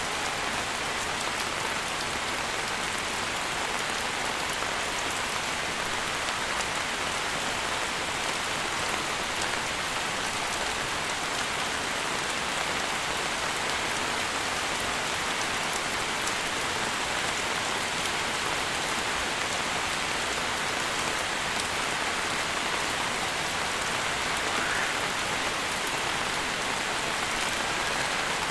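Steady rain falling: an even hiss with many small drop hits.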